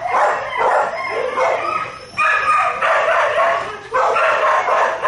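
A dog barking over and over, long pitched barks following one another with hardly a pause.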